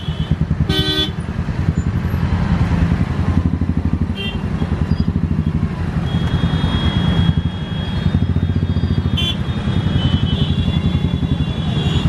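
Several motorcycle engines running close by in a crowd of waiting bikes, a steady rapid putter. A short horn toot about a second in and another brief honk later.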